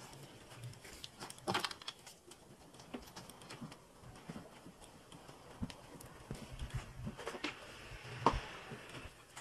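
Cloth being handled at a sewing machine table: quiet rustling with scattered light clicks and knocks, the sharpest about a second and a half in and again near the end.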